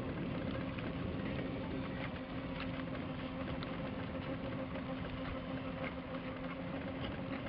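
Electric mobility scooter's drive motor humming with a steady, even pitch as it rolls along at a constant speed, with its tyres rumbling over a concrete path.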